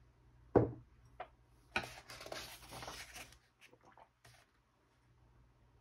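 A coffee mug set down on a marble countertop with a single sharp knock, then a page of a large glossy catalog book rustling as it is turned, with a few light clicks of paper and hands after.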